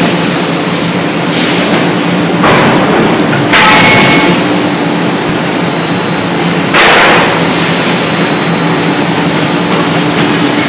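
Forge-shop machinery around an 80 kJ CNC die-forging hammer running with a loud steady roar, a steady high whine and a low hum. Four loud hissing bursts break through, at about one and a half, two and a half, three and a half and seven seconds in.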